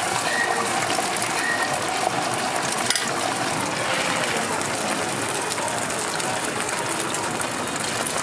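Beaten egg sizzling and crackling on a hot flat-top griddle, steady throughout, with one brief click about three seconds in.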